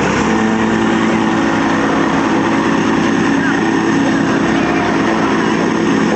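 Engine of road-repair machinery running steadily at an even pitch over a dense mechanical noise.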